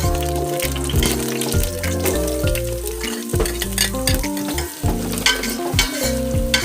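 Food frying and sizzling in hot oil in a pan while it is stirred, with scrapes and small clicks of the utensil, over background music with steady bass notes.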